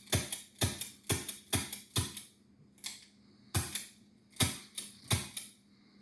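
Revolver dry-fired again and again: sharp metallic clicks of the hammer and cylinder action, about two a second, with a pause of about a second midway. Here the action is cycling freely rather than hanging up.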